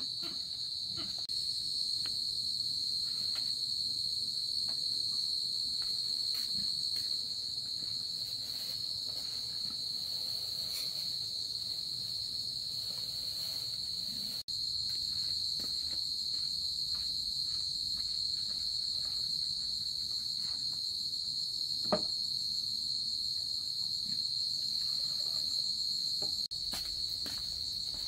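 Crickets chirring in a steady high-pitched chorus, with faint scattered clicks and one sharp knock about 22 seconds in.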